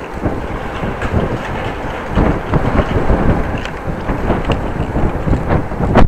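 Wind buffeting an action camera's microphone during a bicycle ride, with irregular knocks and rattles from the moving bike; a sharp knock right at the end is the loudest.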